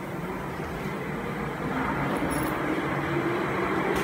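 Steady mechanical running noise of machinery in a CNC router workshop, growing slightly louder, with a faint hum that rises in pitch over the last couple of seconds.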